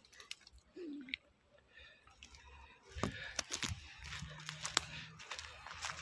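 Dry twigs and brush crackling, with a run of sharp snaps and clicks from about three seconds in.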